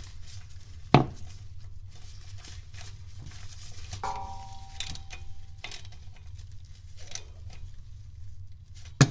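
Hand tools working the locking bolt on a transmission's speedometer pinion gear housing as it is tightened: scattered metallic clicks and clinks, with a sharp click about a second in and a brief metallic ring about four seconds in, over a steady low hum.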